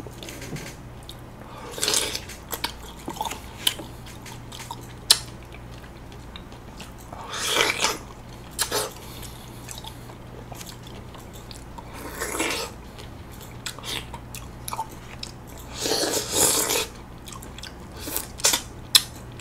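Close-miked chewing and biting of soft golden kiwifruit: scattered small mouth clicks, with a few louder noisy bursts, the loudest about eight and sixteen seconds in.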